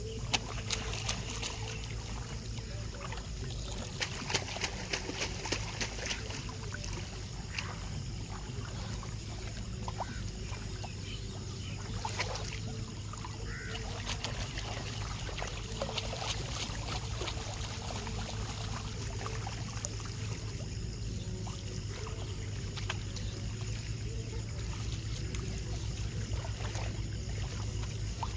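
Shallow muddy paddy water sloshing, trickling and splashing as rice seedlings are pulled up by hand from a flooded nursery bed, with irregular short splashes that are busiest about four to six seconds in. A steady low rumble runs underneath.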